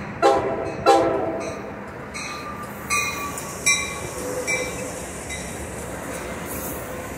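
Amtrak Pacific Surfliner train sounding two short horn blasts as it approaches, then a bell ringing about once a second while the bilevel cars roll past. A steady squeal sets in about halfway through.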